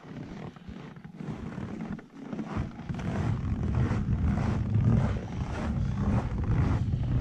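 Wind rumbling and buffeting on the camera microphone, low and uneven, growing louder about two and a half seconds in, with a few soft knocks.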